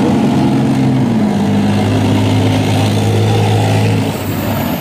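Leopard 2 tank's V12 diesel engine running as the tank drives past, a steady drone with track and running-gear rumble; the engine note shifts about a second in. A faint high rising whine comes in near the end.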